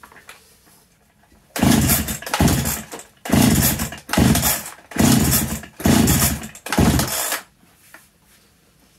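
Husqvarna 365 Special two-stroke chainsaw cranked over by its recoil starter seven times in quick succession, with the spark plug out and a compression gauge screwed in. Each pull is a short whirring rush of cord and flywheel, and the engine does not fire. This is a compression test, and the gauge settles at about 130 psi, low enough that the owner expects it needs new rings.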